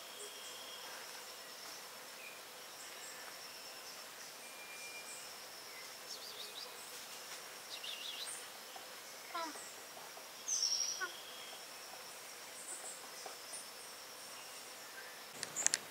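Mountain forest ambience: an insect trilling steadily on one high note, with scattered bird chirps and calls in the middle stretch. A couple of sharp clicks come near the end.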